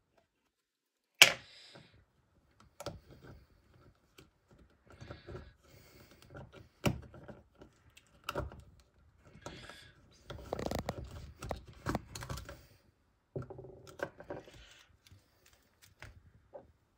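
Handling sounds from opening a small plastic blind-box pot: a sharp click about a second in, then scattered plastic clicks, taps and crinkly rustling as the wrapper comes off and the lid is twisted off. The handling is busiest a little past the middle.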